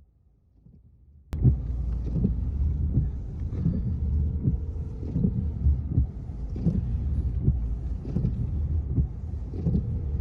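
Low rumble with wind buffeting the microphone, cutting in abruptly about a second in after a moment of near silence.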